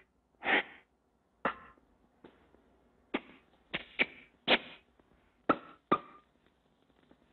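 Early sound-cartoon effects: a breathy sniffle, then a string of about seven short, sharp smacks at uneven spacing, kisses planted on Mickey by Minnie.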